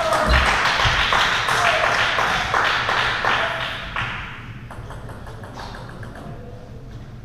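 A player's celebratory shout and claps after winning a table tennis point, dying away over about four seconds. Then a celluloid-type table tennis ball gives light, quick ticks as it bounces while the next serve is readied.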